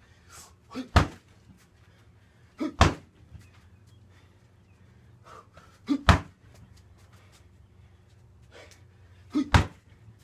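Knees and kicks landing on a black vinyl heavy bag: four heavy thuds spaced a few seconds apart, each just after a lighter hit.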